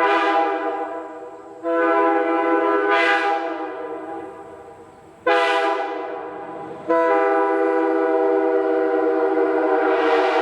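Multi-chime locomotive air horn blown on compressed air, sounding a chord. A blast that is already sounding fades away, then two more blasts each fade after they start, the second short, and a long steady blast follows from about seven seconds in.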